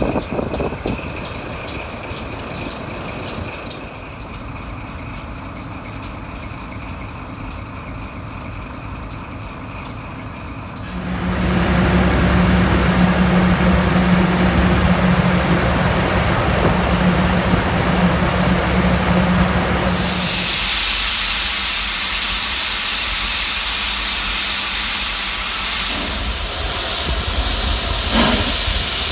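Baldwin 0-4-0T steam tank locomotive. About eleven seconds in, a loud steady low hum starts. From about twenty seconds on, a loud, even hiss of steam blows from the cylinders as the engine moves along the track.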